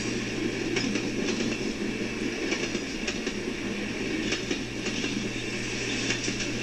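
Passenger cars of a train rolling past close by: a steady rumble of wheels on rail with scattered sharp clicks from the trucks.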